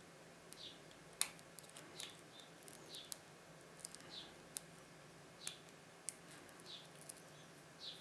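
Faint, irregular metal clicks and ticks of a hook pick working the pins of a TESA TK6 pin-tumbler cylinder under a tension wrench, the loudest a sharp click about a second in. Behind them a bird gives a short falling chirp about once a second.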